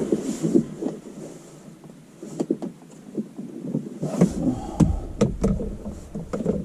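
Hands handling dash cam parts and wiring: irregular rustling and rubbing, with a run of sharp plastic clicks about four to five seconds in.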